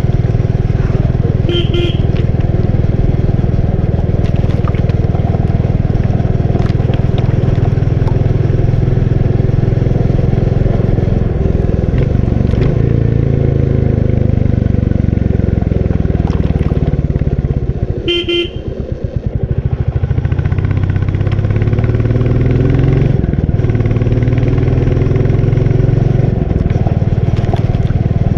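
Royal Enfield Bullet 350's single-cylinder engine running steadily while riding, with two short horn honks, one near the start and one about two-thirds of the way through. Around the second honk the engine drops off briefly, then its pitch rises again as it picks up speed.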